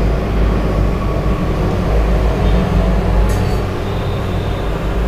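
Steady low rumbling noise, with a light metallic clink a little past three seconds in as the ladle touches the steel idli plate while batter is poured.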